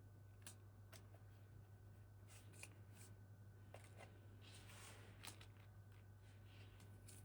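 Hands handling toy packaging: scattered light clicks and taps, with a brief rustle a little past the middle, over a steady low hum.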